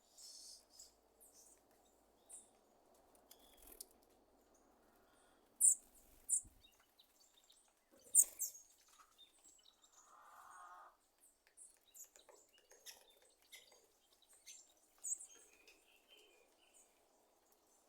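Sabiá thrush giving short, sharp, high-pitched calls at irregular intervals, a popping sound like popcorn; the loudest come about six and eight seconds in.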